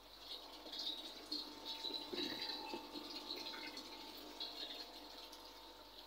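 Faint light splashing and handling of soapy water, readied for a leak test on a refrigerator's charging valve.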